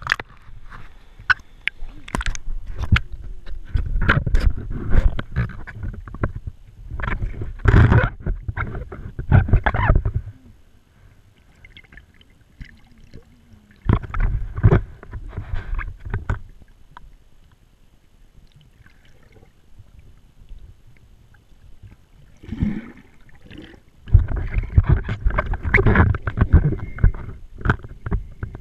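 Water sloshing and gurgling around an action camera held at the surface and dipped underwater: spells of low rumbling with scattered clicks, broken by two quiet stretches in the middle.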